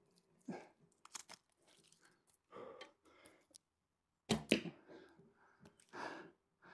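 A person's breathing while holding an upside-down hang on a pole, with scattered small rustles and clicks and one sharper, louder sound about four seconds in.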